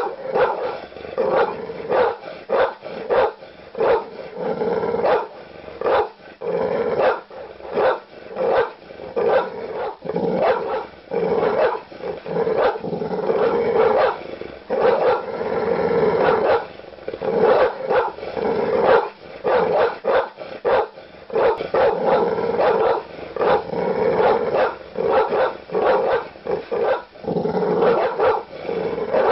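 A large dog barking aggressively, deep barks coming fast and irregularly, one or two a second, with growling running underneath.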